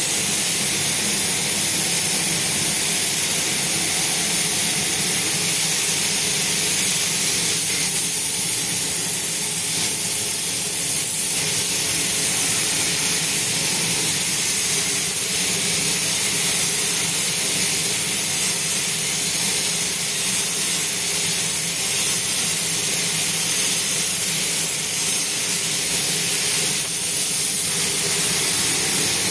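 Compressed-air gravity-feed spray gun hissing steadily as it atomises paint onto a car panel, easing off briefly a few times between passes, over a low steady hum.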